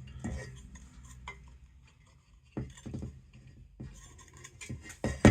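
Metal blower-motor parts being handled during disassembly, clinking and knocking against each other in a few sharp, uneven knocks, the loudest near the end.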